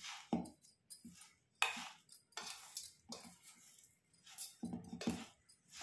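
Metal spoon scraping and clinking against a stainless-steel bowl while stirring chopped green chillies and spices, in short irregular strokes about one or two a second.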